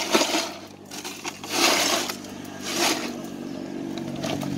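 A few short scraping or rustling noises, then a steady engine hum that sets in about halfway through and keeps running.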